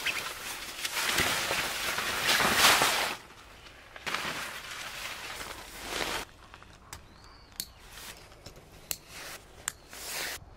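Fabric groundsheet rustling and flapping as it is handled and spread, in two spells, then quieter rustles and a scatter of light clicks as its edge is fastened to the tent wall.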